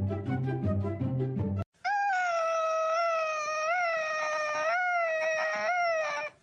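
Background music cuts off abruptly, and after a brief gap a dog howls in one long call of about four seconds, steady in pitch with a few small wavers.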